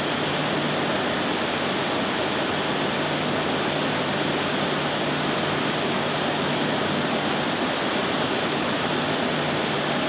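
Steady rushing noise of a docked cruise ship's ventilation and machinery, with a low hum underneath that stops about seven and a half seconds in.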